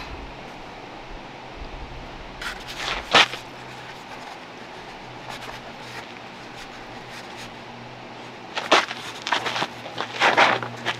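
A few short rustling, crinkling handling noises, about two and a half to three seconds in and again in a cluster near the end, over a steady hiss with a faint low hum.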